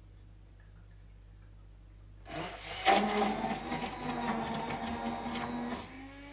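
Hand-held immersion blender switched on about two seconds in, running in a jug of red beet juice to blend in locust bean gum for cold thickening. A loud jump as it starts, then a steady motor whine that dips briefly near the end.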